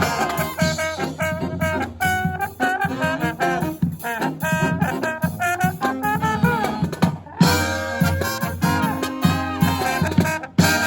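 Live brass band with drums playing an upbeat, swing-style Christmas arrangement, trumpets and trombones carrying the tune. The band cuts off briefly just past the middle and comes back in on a loud hit.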